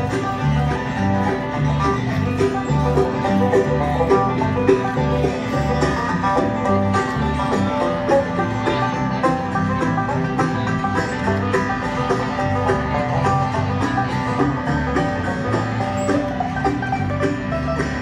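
Live bluegrass band playing a traditional tune, a banjo picking over guitar, with a bass line stepping between low notes about twice a second.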